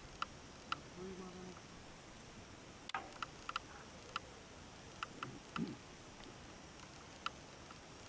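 Faint outdoor quiet with scattered short, high ticks or chirps coming irregularly, a few a second. A brief low hum sounds about a second in.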